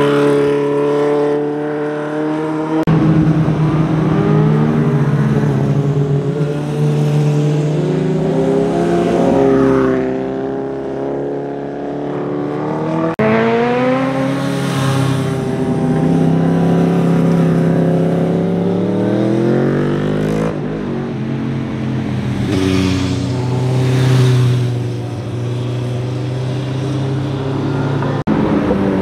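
Sport motorcycle engines revving as bikes lean through a bend one after another, the pitch climbing and dropping with throttle and gear changes. The sound cuts abruptly from one bike to the next several times.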